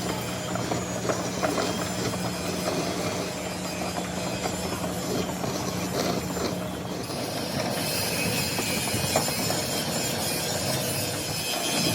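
Machinery clattering with a steady hum; the hum stops about seven seconds in and a high hiss comes up.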